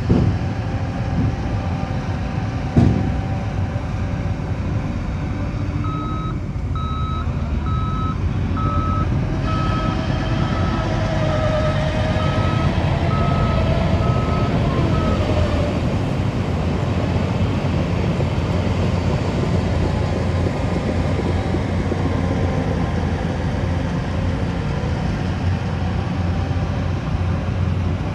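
Heavy earthmoving machine's engine running steadily under load, with a reversing alarm beeping about once a second for roughly nine seconds starting about six seconds in. A single sharp knock about three seconds in.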